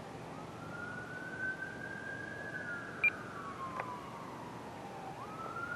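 Electric motor of an FMS Cessna 182 1500mm RC plane whining in flight: the pitch climbs about a third of a second in, holds, sinks slowly, then climbs sharply again near the end. A short high beep sounds about halfway through.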